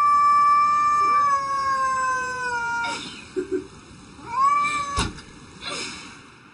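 Domestic cat yowling: one long drawn-out call that slowly sinks in pitch and stops about three seconds in, then a shorter yowl a little after four seconds. A sharp click comes at about five seconds.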